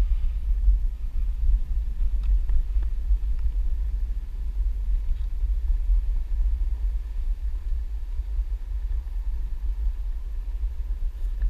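Steady low rumble of a Onewheel XR+ electric board rolling along a bumpy dirt trail, with the ride's wind buffeting the board-rider's camera microphone.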